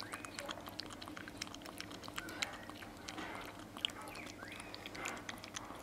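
A ferret lapping water from a bowl: quick, irregular soft clicks and small wet sounds of its tongue at the water.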